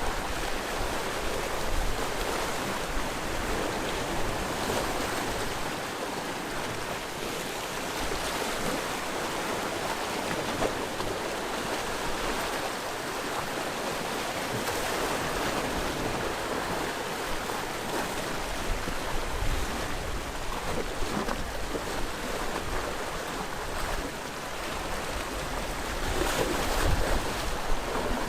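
Sea waves washing onto the shore in a continuous rushing wash, with one louder surge near the end.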